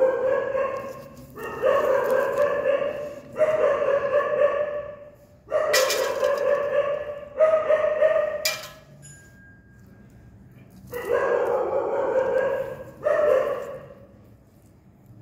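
A dog crying out in pain as forceps work inside its open maggot wound. It gives about seven long, drawn-out whining cries of one to two seconds each, with a lull of a couple of seconds in the middle.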